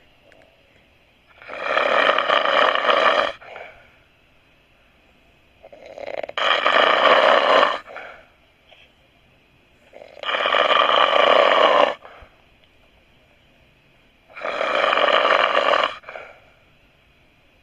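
A person snoring loudly: four long, rasping snores about four seconds apart, each lasting a little under two seconds, with quiet breathing gaps between.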